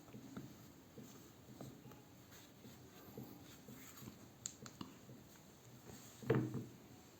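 Faint handling noises of a tablet being worked on at a desk: light taps and rubbing, with one louder knock about six seconds in.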